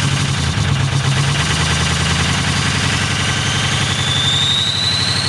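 6.0L engine running steadily at a raised idle on a cold start, its injectors bad. A high whine comes in about three seconds in and rises in pitch.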